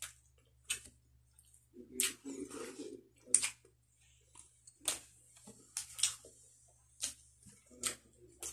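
Close-up eating sounds of a man eating grilled tanigue (Spanish mackerel) with rice by hand: sharp wet lip smacks and mouth clicks while chewing, about one a second, with a short muffled murmur about two seconds in.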